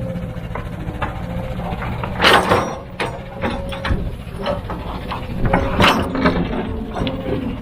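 Heavy earthmoving machine's diesel engine running with a steady whine over it, with irregular metallic clanking and two loud crashes, one about a third of the way in and one near the end.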